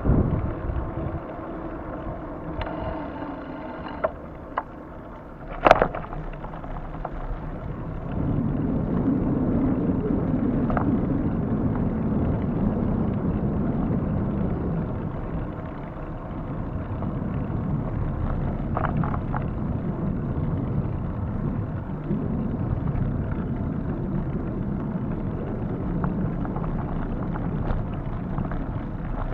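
Wind buffeting the microphone of a moving bike's camera, with tyres rolling over asphalt. The low rumble grows louder from about eight seconds in, and there is a sharp knock about six seconds in.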